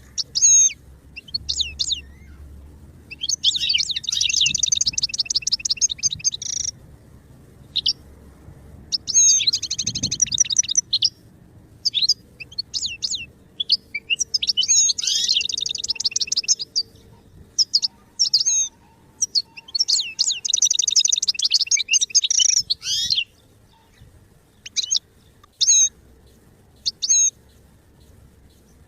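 European goldfinch singing: four fast, twittering song phrases of two to three seconds each, with short single chirps in the gaps between them.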